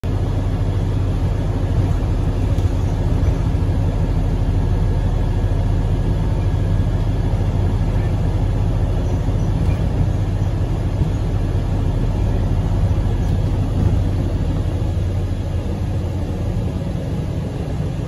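Steady low rumble and hum of a moving road or rail vehicle, heard from inside its cabin while riding.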